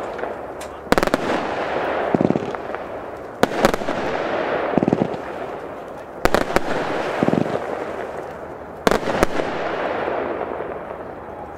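Xplode Firebone firework battery (cake) firing shot after shot, about one every two and a half seconds. Each shot is a dull launch thump, then a sharp bang, then a few seconds of dense crackling as the stars burn out.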